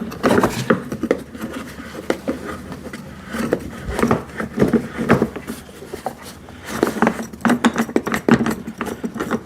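Plastic housing of an electric wood chipper shredder being handled: the locking knob is turned loose and the hopper tilted forward to open the cutting chamber, giving scrapes, clicks and knocks in three short bunches.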